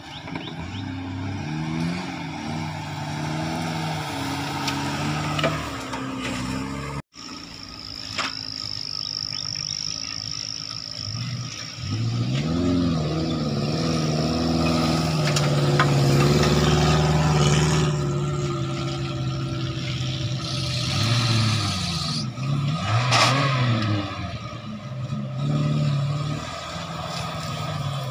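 Small Suzuki Jimny off-road 4x4 engines revving up and down as the vehicles crawl one after another up a rutted grassy track. The sound cuts out abruptly for a moment about seven seconds in.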